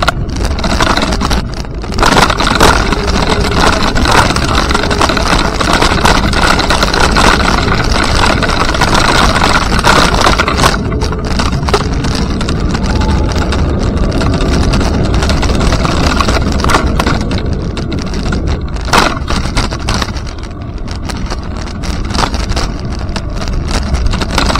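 Steady loud rumble and rushing noise from wind on the microphone while riding.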